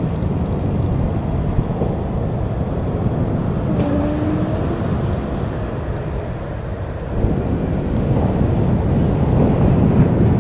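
Airbus A321neo jet airliner rolling out along the runway after landing, its turbofan engines heard as a steady low rumble that gets louder about seven seconds in.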